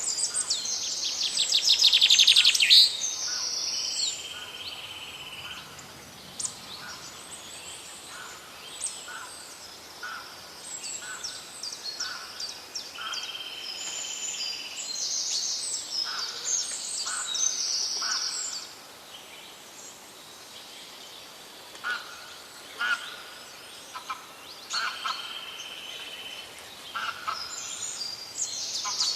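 Several wild birds singing and calling together: short high chirps, whistled notes and trills overlapping, with a loud rapid trill about two seconds in.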